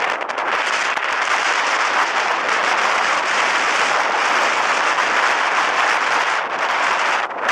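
Blizzard wind blowing hard: a loud steady hiss full of fine crackling, easing briefly near the end.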